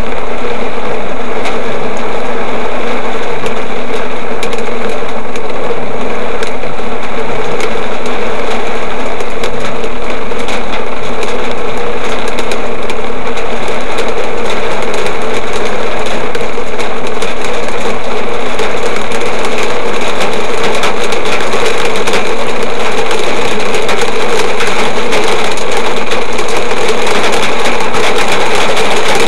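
Heavy cloudburst rain pelting the car's roof and windscreen in a dense, steady patter of drops, heard from inside the car.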